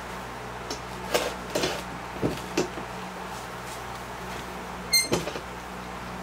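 Twine being pulled tight around a bundle of broomcorn stems on a wooden broom handle: a few short rustles and creaks, with a sharper squeak about five seconds in, over a steady low hum.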